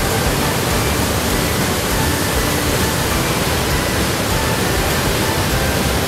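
Dhuandhar Falls on the Narmada river in full flow: a loud, steady rush of water crashing over the rocks.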